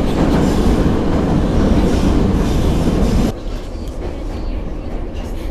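Kyiv Metro train running, heard from inside the carriage: a loud rumble of the wheels on the rails that drops suddenly in level about three seconds in.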